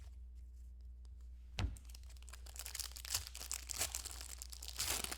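A single thump about a second and a half in, then a trading-card pack's wrapper being torn open and crinkled.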